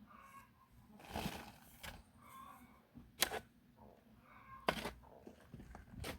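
A hand digging tool striking and scraping into packed murram soil: five irregular sharp hits, the loudest about three seconds in.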